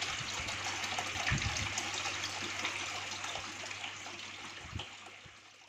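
Aquarium water trickling and splashing, as from a filter outflow, over a steady low hum, with a couple of soft low knocks; it fades out toward the end.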